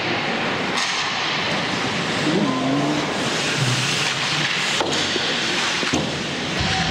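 Sound of an ice hockey game in a rink: a steady hiss of skates carving the ice and arena noise, with a few sharp knocks and a brief shout.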